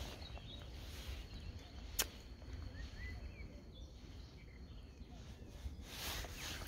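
Wind rumbling on the microphone beside open water, with a few faint bird chirps and a single sharp click about two seconds in.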